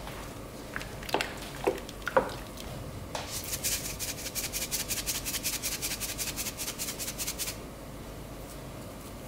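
A wooden spoon knocks three or four times against the frying pan as crushed garlic goes into the soup. Then comes a rapid, even rattle of salt being shaken into the pan, about eight shakes a second for some four seconds.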